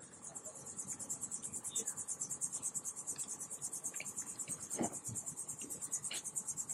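Insects trilling from the mangroves: a steady, high-pitched pulsing chorus at about eight pulses a second, with a soft knock about five seconds in.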